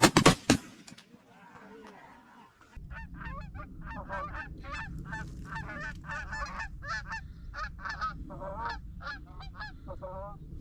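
Three shotgun shots in quick succession, then, after a short lull, geese honking over and over in a steady run of short calls with a low rumble beneath.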